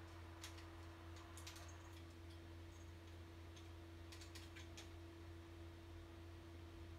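Faint clicks and taps of a cat's claws and paws on a small wooden folding drying rack as it shifts and turns, a few in quick succession about a second and a half in and again between four and five seconds in, over a steady low hum near silence.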